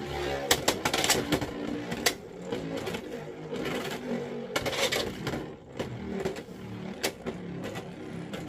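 A Beyblade X top (Phoenix Feather) spinning and travelling around a clear plastic stadium: a steady whirring rattle from its tip on the floor, with scattered sharp clicks and knocks.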